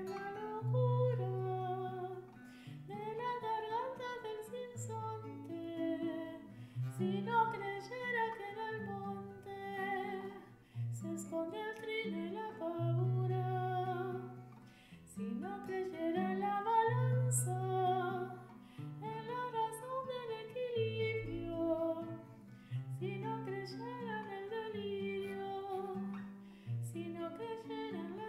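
Music: a voice singing a Spanish-language melody over guitar accompaniment with held low notes, a practice track for the soprano part of a choral arrangement.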